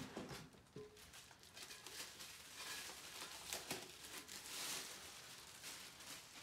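Faint rustling, crinkling and scraping of packaging being handled as a wheel rim is unboxed, with scattered small clicks and a longer hiss a little past the middle.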